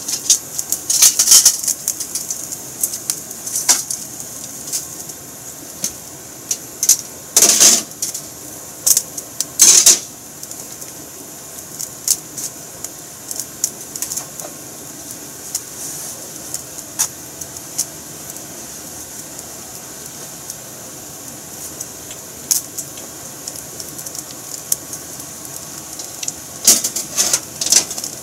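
Kitchen clatter: cookware and utensils being handled during frying preparation, in scattered clicks and knocks with louder clanks about 7 and 10 seconds in.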